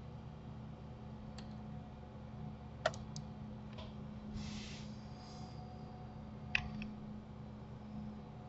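Computer mouse and keyboard clicks, a handful of short sharp clicks with the two loudest about three and six and a half seconds in, over a low steady hum.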